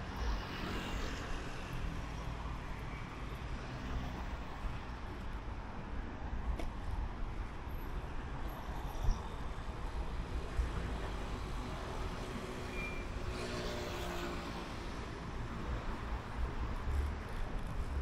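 Road traffic going by: a steady rumble of vehicles, with one passing close near the start and another, with an audible engine note, about three-quarters of the way through.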